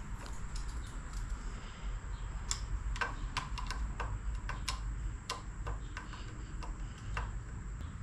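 Irregular light clicks and ticks of small parts being fitted and worked into a mini bike's twist-throttle housing, over a low steady rumble.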